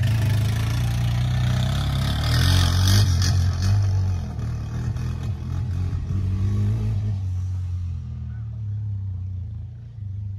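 Engine of a small off-road vehicle driving away under throttle, loudest at first and fading steadily as it moves off into the distance over the last few seconds.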